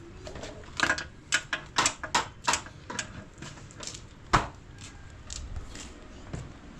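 A quick, irregular run of sharp knocks and taps, then one louder knock about four and a half seconds in, and a few fainter taps after it.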